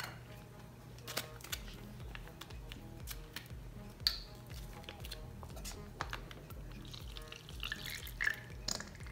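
Soft background music under small kitchen handling sounds: a few light clicks, the sharpest about four seconds in as the plastic cap comes off a tomato-sauce pouch, then near the end sauce being squeezed from the pouch into a measuring cup.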